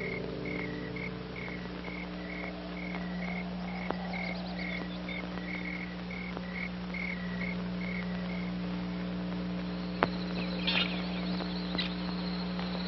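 Night ambience: an insect chirping steadily about twice a second over a steady low hum. The chirping stops about two-thirds of the way through, and a few short bird chirps come in near the end.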